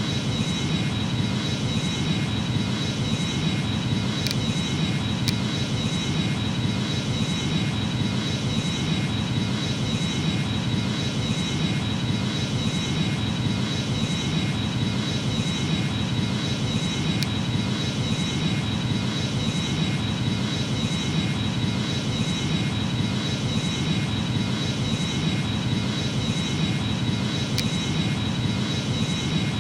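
Boeing 737 jet engines running steadily: an even rush of noise with a thin, high, steady whine over it and a few faint clicks.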